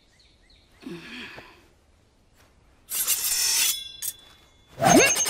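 Cartoon sound effects: a short breathy exhale about a second in, then a loud swish ending in a brief metallic ring around three seconds in. Near the end comes a sharp rising swish that runs into a fast, even buzzing effect.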